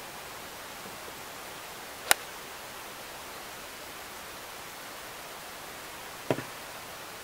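A golf club striking a ball with one sharp click about two seconds in, then a second, duller hit followed by a quick small tap near the end, over a steady background hiss.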